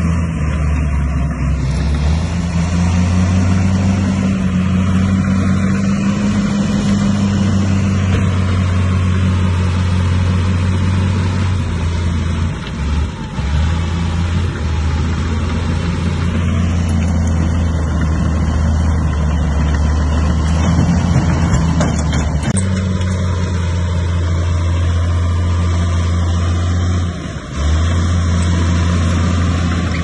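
Bulldozer's diesel engine running at steady revs, a low drone that dips briefly twice, about halfway through and near the end.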